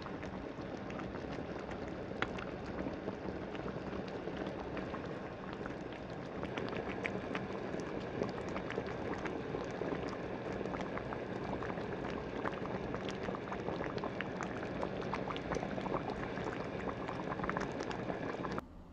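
Food simmering in a pot, bubbling steadily with many small pops.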